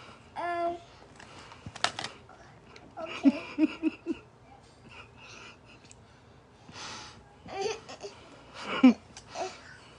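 A person giggling and making wordless vocal sounds in short bursts, including a run of four quick laughs about three seconds in.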